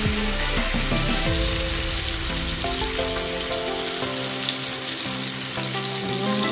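Daing na galunggong (split, marinated round scad) sizzling steadily as it fries in hot oil in a pan, with background music playing.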